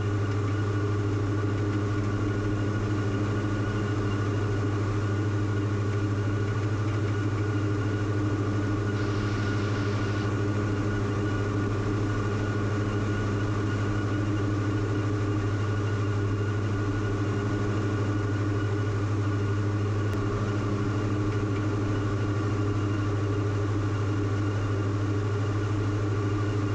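Diamond DA42's twin Austro AE300 turbodiesel engines and propellers running steadily in flight, heard inside the cockpit as a constant drone with a strong low hum.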